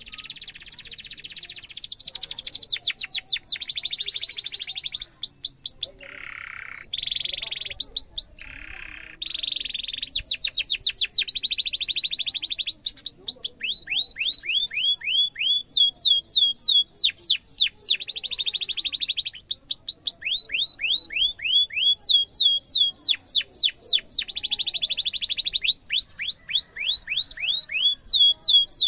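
Domestic canary singing a long, unbroken song: runs of quick down-slurred chirps, about five a second, alternate with fast, dense rolls. A lower, slower phrase comes about a quarter of the way through.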